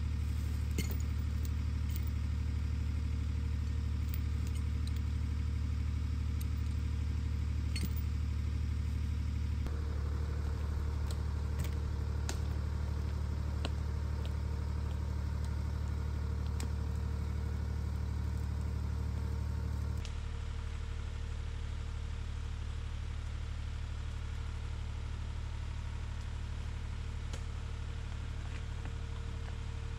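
Lamborghini tractor's diesel engine running steadily at low revs. Sharp metallic clinks of a log chain being handled are heard over it during the first half.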